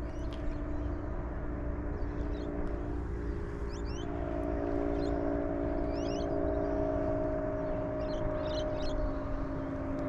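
Steady electric hum of a bow-mounted trolling motor, its pitch shifting slightly about four seconds in. Short rising bird chirps sound over it several times.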